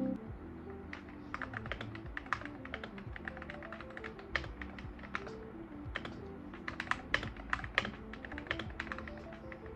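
Typing on an Akko MonsGeek Fun60 mechanical keyboard: a quick, uneven run of key clacks, with background music underneath.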